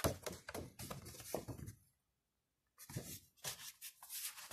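Glossy printed photo cards and paper rustling and sliding against each other as they are handled, in a run of short scrapes and taps. The sound drops out completely for about a second in the middle.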